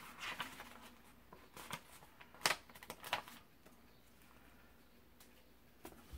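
Soft rustling of paper being handled, with a few light clicks and taps, as cut paper pieces are picked up and pressed down onto a collage sheet.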